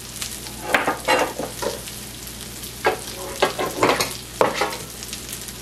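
Chicken patties sizzling in hot lard in a griddle pan, a steady frying hiss, with several short scrapes and clatters scattered through it.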